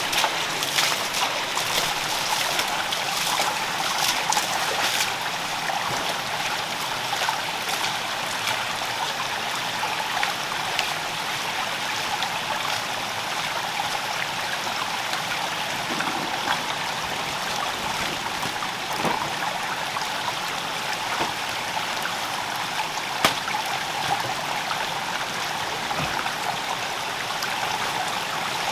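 Small rocky forest stream trickling and running steadily over stones, with a single sharp tap about two-thirds of the way through.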